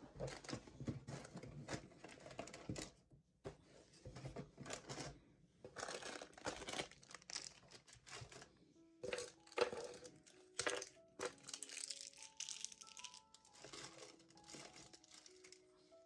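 Plastic snack packaging crinkling and rustling in irregular bursts as items are handled and cleared off a desk. Soft background music with held notes comes in about halfway through.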